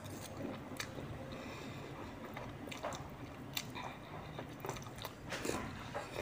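Close-up eating sounds: a person slurping up chicken noodles and chewing them, with scattered wet mouth clicks.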